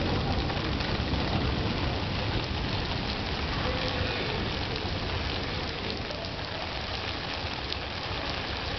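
Steady heavy rain falling on wet stone paving and an open umbrella, an even hiss with scattered individual drop ticks.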